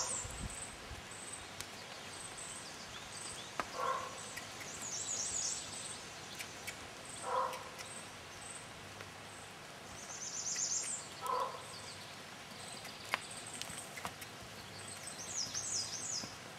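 Outdoor birdsong: a high, quick trilled phrase repeats about every five seconds, with a row of faint short high notes. A lower, short call sounds about every three to four seconds over a faint steady background hiss.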